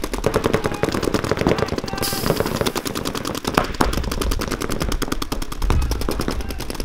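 Paintball markers firing rapidly: a dense, continuous stream of sharp pops that overlap without a break.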